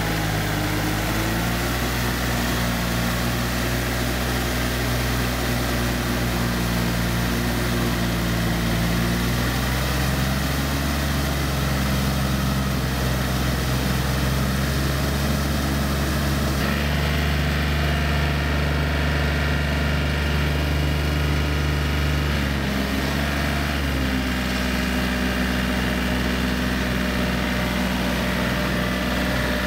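Yanmar EF393T four-wheel tractor's diesel engine running steadily under load as it pulls a rotary tiller through wet paddy mud, its pitch shifting to a new steady level a few times.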